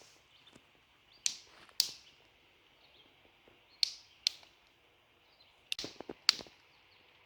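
Stone knapping: a hammerstone striking a stone core, about eight sharp clicking strikes, mostly in pairs, with a quick run of blows near the end.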